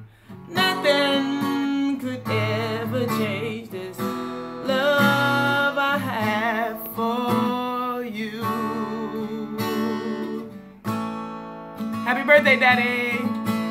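A woman singing with vibrato to her own strummed acoustic guitar.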